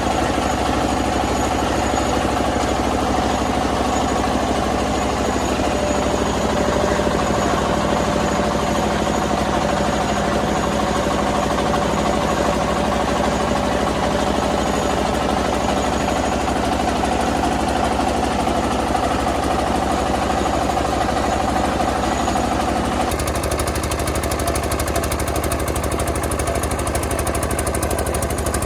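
Rice milling machine running steadily, a loud mechanical drone with a fast, even pulsing; the tone of the machinery shifts about 23 seconds in.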